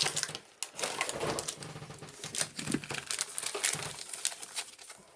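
Pokémon card booster packs and cards being handled: scattered crinkling of foil pack wrappers and light clicks and taps, at an irregular pace.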